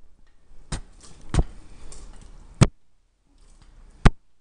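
A metal spoon knocks four times against a plastic plate while food is scraped off it into a soup pot. Each knock is sharp and short, and they come at uneven intervals.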